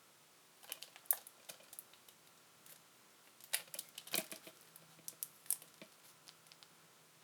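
Scattered light clicks and taps of a Blu-ray case and its cardboard slipcover being handled, with a denser cluster of clicks a little before the middle.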